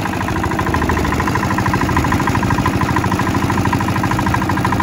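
Single-cylinder diesel engine of a small wooden boat running steadily with a rapid, even chugging knock as it drives the boat through the water.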